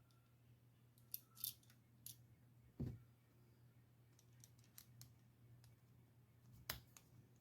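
Faint, scattered clicks and taps of small carburetor parts and hand tools being handled during reassembly of the impulse side of an Echo 500P chainsaw carburetor, with a duller knock about three seconds in.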